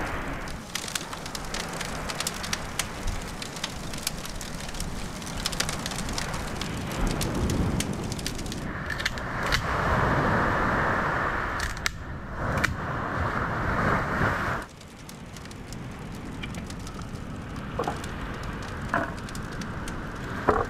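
Dry firewood snapping and a campfire crackling, with many sharp ticks and cracks. For several seconds in the middle, surf washes over them, and it cuts off abruptly about fifteen seconds in.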